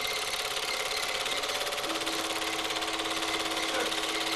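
Super 8 film projector running, its mechanism giving a fast, even clatter. A steady tone joins about two seconds in.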